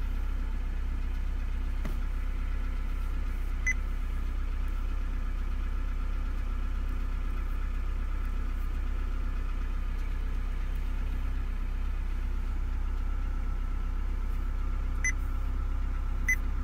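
Honda Integra's engine idling steadily, heard from inside the cabin, with three short high electronic beeps, one near the start and two close together near the end.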